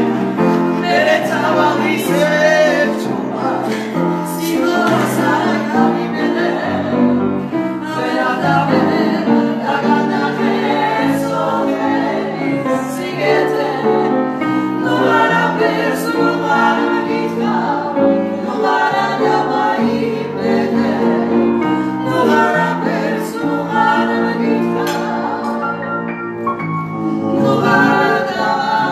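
Women singing a song together, accompanied by an upright piano.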